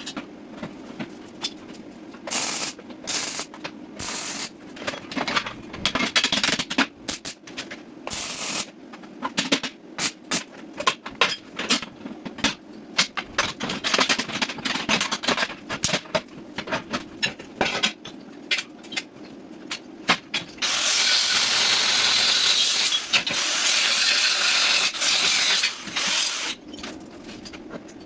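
MIG welding on steel: a long series of short crackling bursts and clicks as tack welds go on, then about five seconds of continuous arc hiss and crackle from a longer weld that stops near the end. A steady low hum runs underneath.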